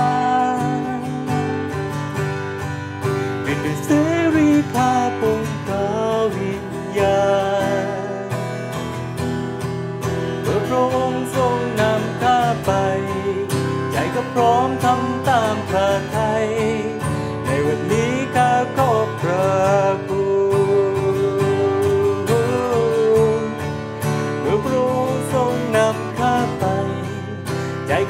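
A man singing a worship song to his own strummed acoustic guitar.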